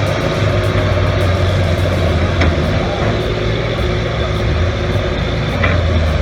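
Heavy diesel machinery engine running steadily with a deep low rumble, and a couple of faint clicks.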